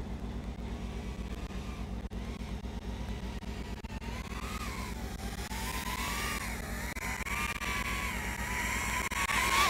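FPV racing quadcopter's motors whining, the pitch wavering up and down with the throttle and climbing near the end as the drone manoeuvres close in, over a steady low hum.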